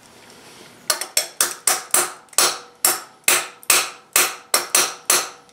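A steel tool tapping a milling-machine vise, a run of light metallic knocks about three a second, each ringing briefly. They start about a second in, as the vise is nudged into line with the indicated jaw.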